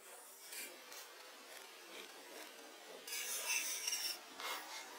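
A knife blade scraping along a wooden log, rasping. The loudest stroke comes about three seconds in and lasts about a second, with a shorter scrape just after and a few lighter scrapes before.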